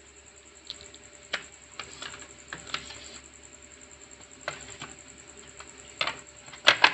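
Irregular sharp plastic clicks and knocks from an analog multimeter's case and circuit board being handled and put back together, loudest in a quick pair near the end.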